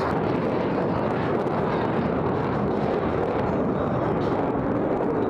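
A formation of F/A-18 Super Hornet jets flying past, their engines making a steady, even jet noise.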